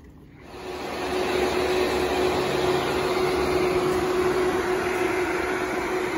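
High-performance 13B rotary engine running steadily, a steady hum-like tone over the engine noise, coming in about half a second in.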